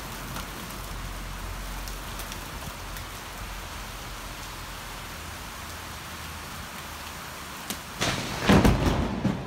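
Steady rain falling, then about eight seconds in a close clap of thunder breaks in suddenly and loudly with several sharp cracks: the sign of lightning striking nearby.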